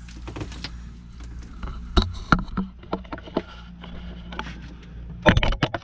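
Steady low hum of running electric equipment, the dehumidifier and pumps set going to dry out a leaking boat, broken by a few sharp knocks about two seconds in and a quick cluster of knocks and clatters near the end.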